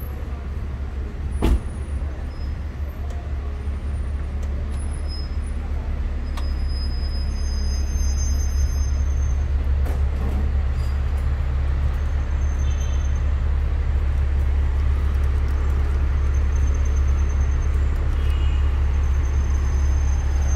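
Busy city street ambience: a steady low rumble of road traffic, with a sharp knock about one and a half seconds in, growing somewhat louder over the first several seconds.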